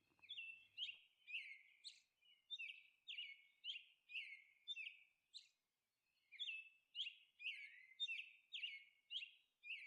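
Faint bird chirping: a quick string of short, high chirps, about two a second, with a brief pause around the middle.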